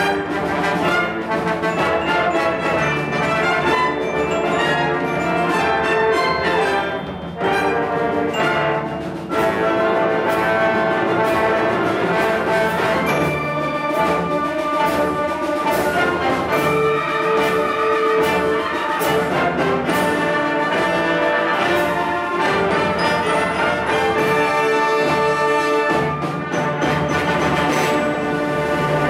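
Concert wind band playing, brass and woodwinds together in full, sustained chords, with two short dips in loudness about seven and nine seconds in.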